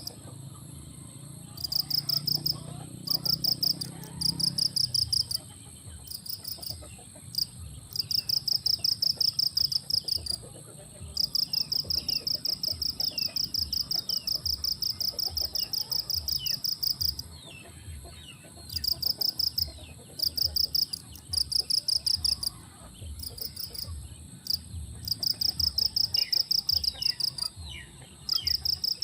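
An insect chirping in fast, even pulse trains, about six pulses a second, in bouts lasting one to several seconds with short pauses between. Small birds make brief falling chirps through it, over a low rumble.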